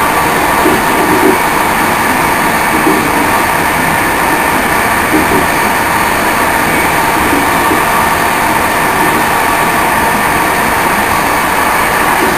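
Steady running noise of an InterCity train at speed, heard from inside the last carriage: wheels on rails as one even noise, with no breaks or single knocks.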